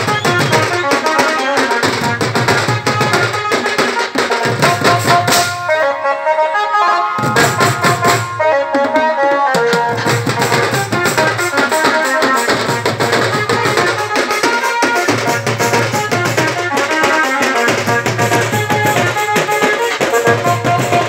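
A street drum band of many stick-beaten drums playing a fast, loud, driving rhythm together, with a melody line over the drums. The drums drop out for about a second around six seconds in, then come back.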